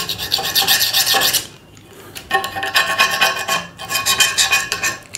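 A sharp blade scraping old silicone sealant off the glass corners of an aquarium in rapid back-and-forth strokes. The scraping comes in two spells, with a short pause about a second and a half in.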